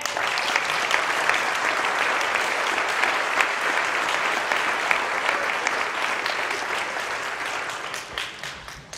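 Audience applauding, a dense patter of many hands clapping that starts all at once and tapers off near the end.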